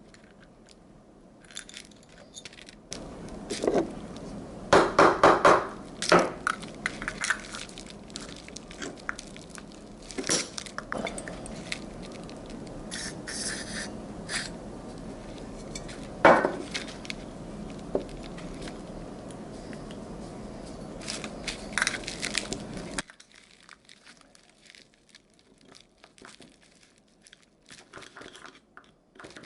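Small metal parts and tools clinking and knocking on a workbench as a motorcycle starter motor is worked on, in irregular clusters of clicks. A steady background hum runs under them and stops suddenly about three-quarters of the way through.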